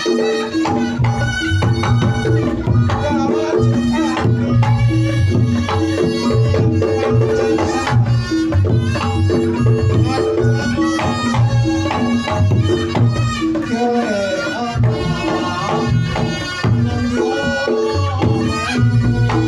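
Reog Ponorogo gamelan music played loud through a sound system: kendang drums beating under repeating pitched gong notes, with a wavering reed melody above.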